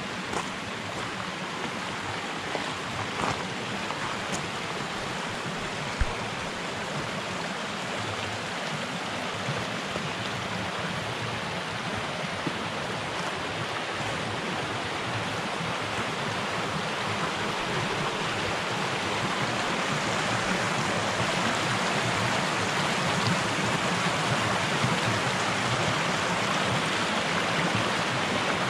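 Muddy flash-flood water rushing over rocks in a normally dry stream bed, a steady rush of noise that grows louder in the second half. The flow is runoff from a short, heavy shower on the mountain above.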